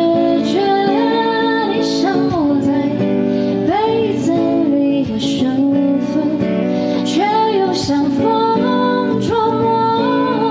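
A woman singing a slow pop ballad into a microphone, accompanying herself on a steel-string acoustic guitar; the voice glides and bends between held notes over a steady guitar accompaniment.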